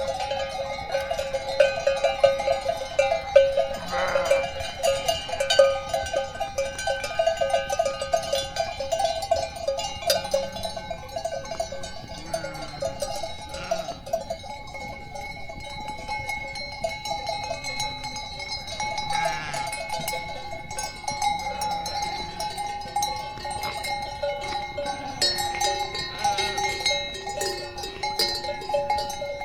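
A flock of sheep and goats with a steady jangle of bells clanking as the animals move, and several bleats scattered through it.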